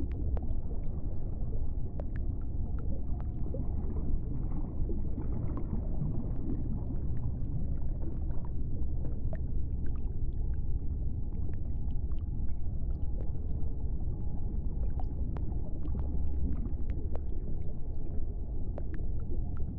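Underwater ambience: a steady low rumble with many small scattered clicks and a faint steady tone in the background.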